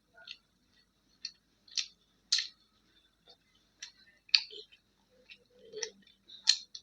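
Close-miked eating sounds: irregular wet smacks and clicks of a person chewing mouthfuls of roti and kadhi pakoda, with short pauses between them.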